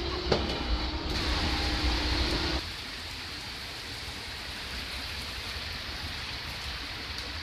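Inside a moving vehicle on a wet street: engine and road rumble with a steady whine and a knock just after the start. About two and a half seconds in it cuts to heavy rain pouring steadily onto the road and pavement.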